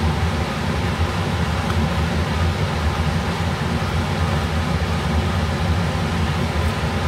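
Kitchen exhaust fan running steadily with a low hum.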